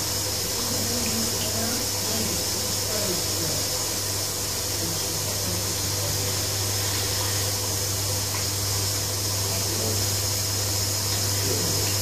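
Old front-loading washing machine running, a steady low hum from the machine with water and laundry sloshing in the drum.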